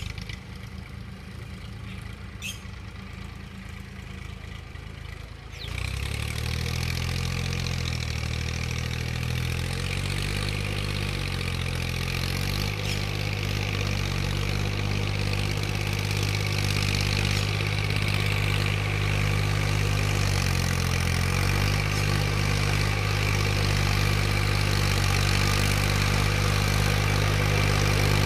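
Massey Ferguson 1035 DI tractor's 35 hp three-cylinder diesel engine running under load while tilling, its pitch rising and falling a little. It gets suddenly louder about six seconds in and keeps growing louder as the tractor comes closer.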